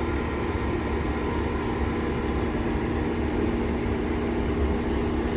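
Steady hum of a running car, engine and road rumble with a constant low drone.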